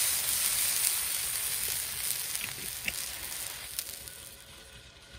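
Liquid sizzling on a hot stainless steel griddle over a wood stove, with a couple of small pops. It is loudest at first and fades steadily as the bubbling dies down.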